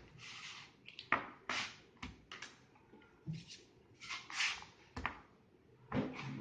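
Bread dough being worked by hand on a stone worktop: a string of short, irregular rubbing and scraping sounds as the dough is rounded under the palm and cut with a plastic bench scraper.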